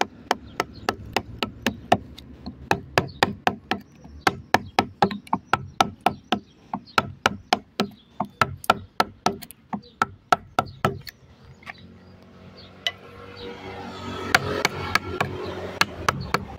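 Rapid, even knocks, about four a second, of a wood-carving gouge being struck as it cuts letters into a wooden board. The knocking stops about eleven seconds in, giving way to a softer scraping of the gouge pushed through the wood.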